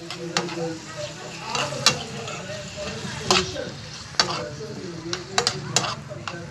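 A spoon stirring diced potatoes, tomatoes and onions in a nonstick frying pan, over a sizzle of frying. The spoon strikes and scrapes the pan in irregular sharp clicks, about ten of them.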